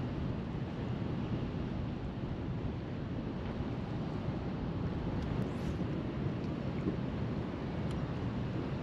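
Wind buffeting the microphone over fast, choppy river water rushing past a boat: a steady, unbroken noise.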